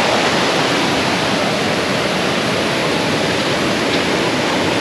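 Small stream rushing steadily, a dense even wash of water noise, running strong after recent rain.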